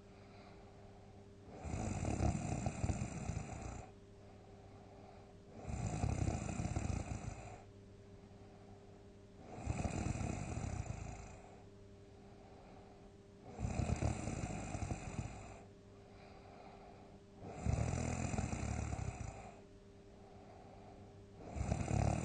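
A person snoring loudly in their sleep: six big snores, each about two seconds long, coming about once every four seconds, with quieter breaths between.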